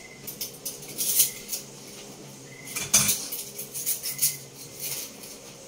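Dishes and cutlery clinking and knocking together while being washed at a kitchen sink: a string of short clinks, with one louder knock about three seconds in.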